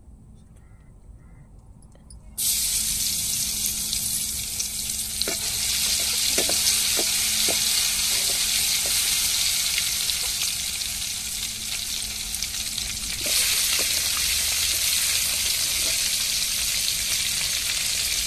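Marinated soya chunks deep-frying in hot oil in an aluminium pan: a loud, steady sizzle that starts suddenly about two seconds in, with a few pops from the oil.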